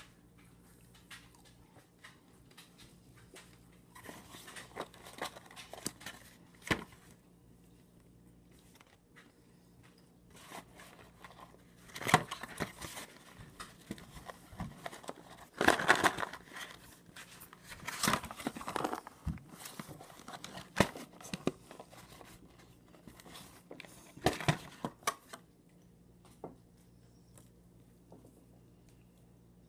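Paper and cardboard rustling, crinkling and tapping as a cardboard fried-chicken bucket and its contents are handled, in scattered short bursts with quiet gaps, the loudest in the middle.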